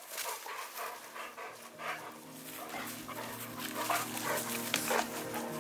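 Two dogs, a Rhodesian ridgeback and a black Labrador–mastiff cross, vocalizing as they play-wrestle in brush, with a few sharp rustles and snaps of undergrowth. Soft music fades in from about two seconds in.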